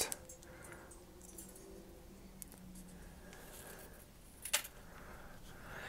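Quiet handling of a small Lego-brick jig holding fine nichrome wire on a cutting mat: faint taps and rubbing, with one sharp click about four and a half seconds in.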